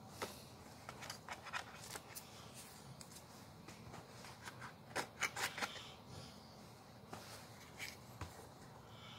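Hands handling cardboard and plastic earbud packaging: light rustling and scattered clicks and taps, with a quick run of clicks about five seconds in.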